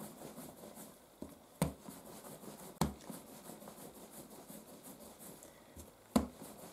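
Hands pressing and rolling bread dough on a kitchen countertop: faint rubbing with three soft knocks, about a second and a half in, near three seconds and near the end, as the dough or hands meet the counter.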